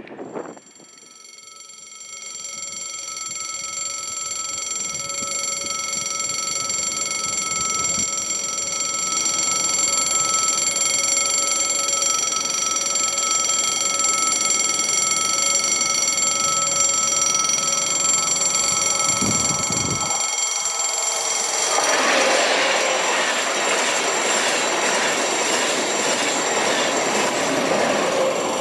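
Level-crossing warning bell ringing steadily. A TGV high-speed train then passes at speed over the crossing from about 22 seconds in, its broad rushing noise of wheels and air rising over the bell.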